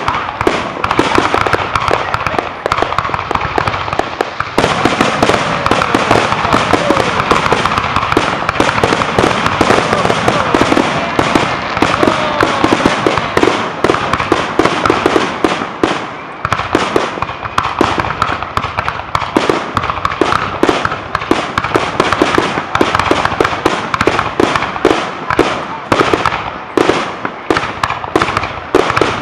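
Aerial fireworks going off in a dense, unbroken barrage of bangs and crackling, with a few whistling glides in the middle.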